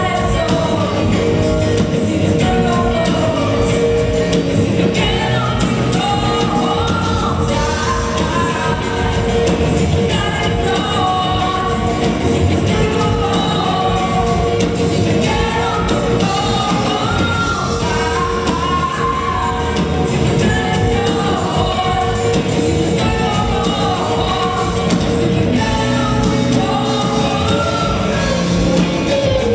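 Live rock band playing, with electric guitars, bass, keyboard and drums, while a woman sings the lead vocal. A steady held note sits under much of it.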